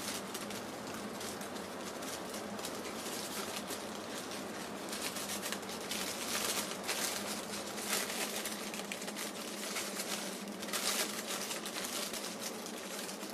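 Brown kraft paper and tissue packing paper rustling and crinkling as it is unfolded by hand, in irregular bursts that are busiest in the middle and again near the end.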